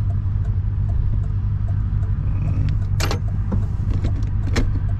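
Steady low drone of a car's engine and road noise heard from inside the cabin while driving. Two sharp rattling clicks cut through it, about three seconds in and again near the end.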